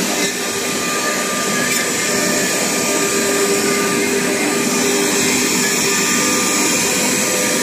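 Multi-spindle CNC wood-carving routers running: a steady whine of the spindles over a constant rushing noise.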